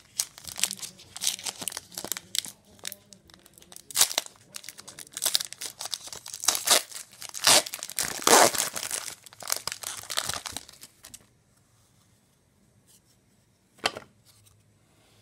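A foil trading-card pack being torn open by hand, its wrapper crinkling in a dense run of crackles that stops about eleven seconds in. One short click near the end.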